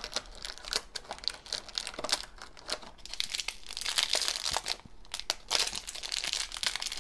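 A thin foil blind bag being torn open and crumpled by hand: dense crinkling and crackling with short tearing sounds, busiest in the middle and near the end.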